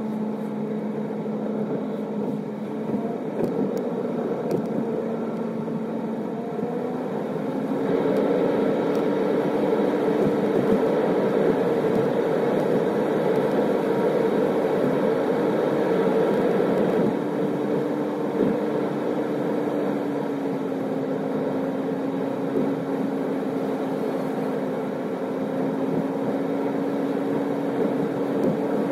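A car being driven: a steady engine hum over road noise, with the engine note stepping up in pitch and getting louder about seven seconds in.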